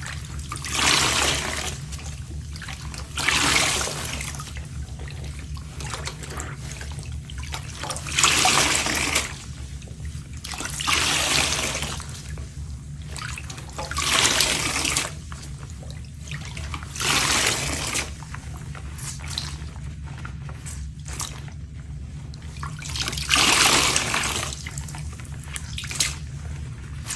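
Soapy sponges being rinsed under running water and squeezed out: a steady run of water with a louder squelching rush every few seconds as each squeeze forces the sudsy water out.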